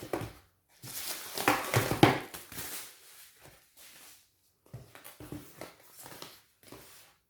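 Rustling and handling noises from packaging being unwrapped, in irregular bursts, the loudest between about one and three seconds in.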